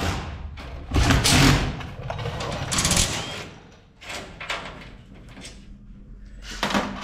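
Cordless drill running in several short bursts on the fasteners of a race car's roof.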